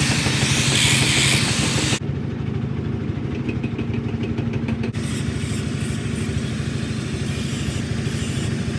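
Angle grinder grinding a steel knife blade for about two seconds, then cut off abruptly. After that, an engine idling steadily in the background.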